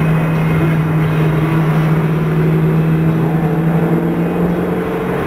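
Car engine droning at steady revs while cruising, heard from inside the cabin, its pitch easing slightly lower near the end.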